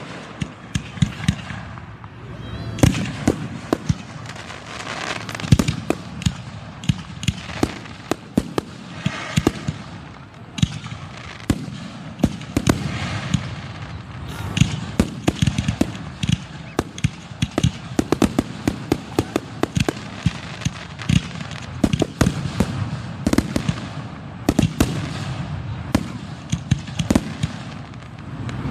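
Fireworks display heard from close range: shells bursting overhead in a dense, irregular run of loud bangs, often several a second.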